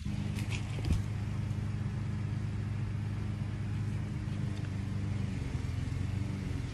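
An engine idling steadily, a low even hum, with a few light clicks and a single knock about a second in.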